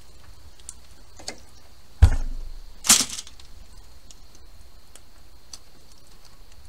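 Metal tongs clicking and scraping against a smoker's wire cooking grate as burgers are lifted off. There is a sharp thump about two seconds in and a louder scrape about a second later.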